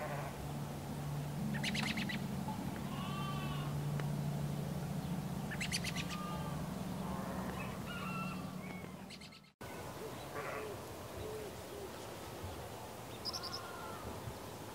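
Birds calling, with short arched chirps and a couple of quick rattling calls, over a steady low hum. The sound drops out for a moment about nine and a half seconds in, then the calls carry on.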